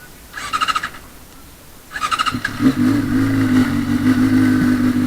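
Honda CBR600RR's 599 cc liquid-cooled inline-four being started. A short burst of starter cranking comes first, then a second crank about two seconds in. On the second crank the engine catches and settles into a steady idle.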